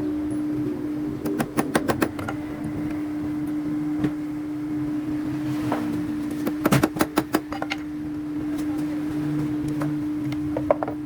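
A steady mechanical hum, with two quick runs of sharp knocks in a woodworking shop, one about a second in and one past the middle, and a couple more near the end.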